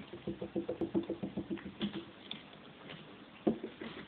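A Bengal kitten's paws scrabbling and tapping on his cat tree: a quick run of soft taps, about eight a second, for around two seconds, then a few scattered taps and a single louder thump near the end.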